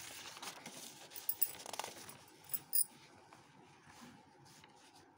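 Paper rustling as sheets are shifted on a clipboard, with a few light clicks and taps in the first half.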